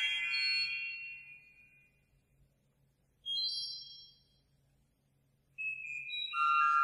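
Organ playing high sustained chords in short separate phrases: a chord dying away at the start, a brief high chord about three seconds in, and a new, fuller chord entering near the end.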